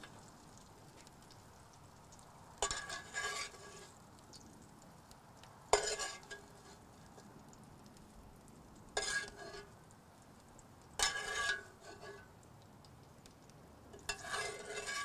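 A slotted metal spoon scraping and clanking against a cast iron pan five times, about every three seconds, scooping out crispy potatoes, each stroke leaving a brief metallic ring. A faint, steady sizzle of hot oil and brown butter runs between the strokes.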